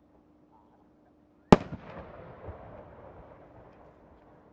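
A 10-gou (12-inch) aerial fireworks shell bursting with a single sharp boom about a second and a half in, followed by a rumbling echo that fades away over the next few seconds.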